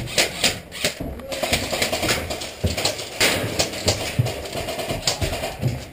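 A run of irregular knocks and clicks with a few low thumps among them, at uneven intervals throughout.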